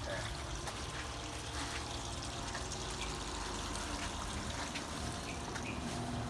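Steady trickle of running water, with a low steady hum underneath.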